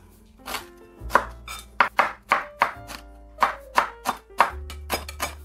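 Large kitchen knife chopping a fennel bulb on a wooden cutting board: a quick, irregular run of sharp knocks, about two or three a second, over soft background music.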